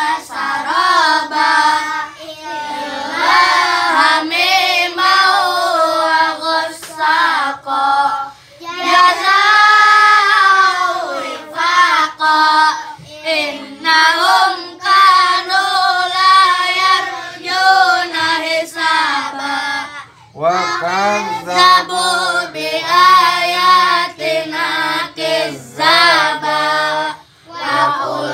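Children reciting the Quran aloud together in a melodic chant, in long flowing phrases broken by short pauses between verses.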